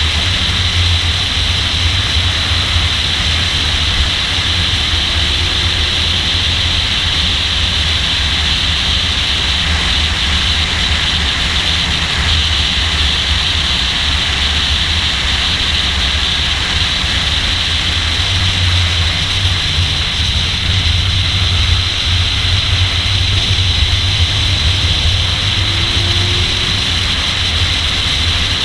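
Car at speed on a race track, heard from a camera on its hood: a steady, unbroken rush of engine, tyre and wind noise with a strong low rumble.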